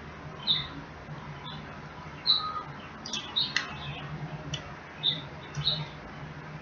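Close-up wet mouth sounds of someone eating: short squeaky lip smacks and sucking clicks, about ten of them in irregular succession.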